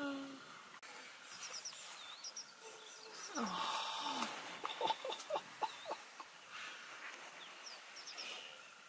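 Wild birds chirping with short high calls. About three and a half seconds in comes a short breathy snort with a low falling grunt, then a quick run of soft clicks.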